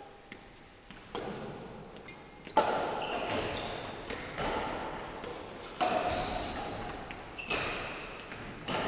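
Badminton rally: about six crisp racket strikes on the shuttlecock, one every second or two, each echoing in a large sports hall, with short high squeaks of shoes on the court floor between hits.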